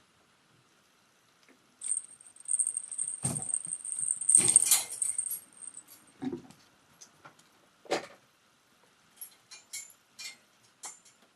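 A small jingle bell on a cat toy jingling and rattling as a kitten bats at it, with a few dull thumps and light ticks of the toy knocking about.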